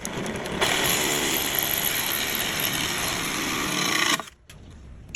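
Power drill spinning a hole saw as it cuts into a wooden board, a steady grinding cut that starts about half a second in and stops abruptly about a second before the end.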